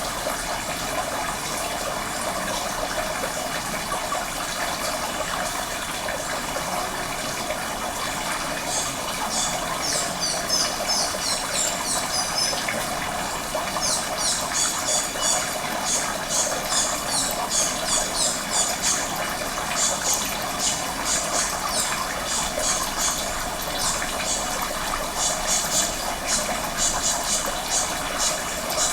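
Steady rushing of flowing water. From about nine seconds in it is overlaid by rapid, high-pitched chirps that come in quick repeated bursts.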